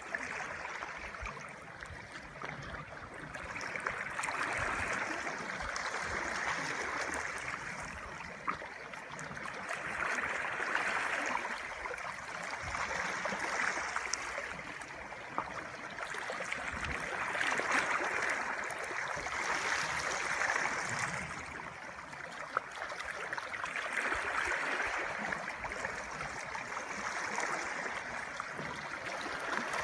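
Sea water lapping and splashing at the surface, a steady wash that rises and falls every few seconds.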